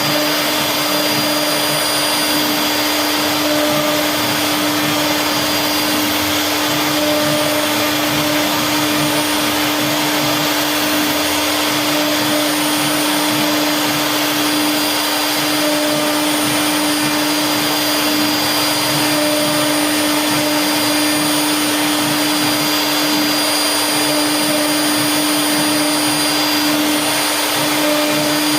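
CNC router spindle running steadily at high speed, carving wood, with a constant high whine over a broad hiss.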